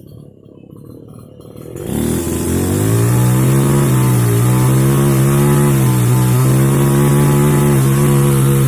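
Small two-stroke mini chainsaw ticking over quietly, then revved up about two seconds in and held at full throttle, running steadily at high speed with slight dips in pitch.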